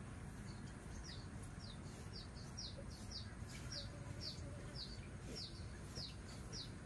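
A small bird chirping faintly: a steady series of short, high, falling chirps, about two a second.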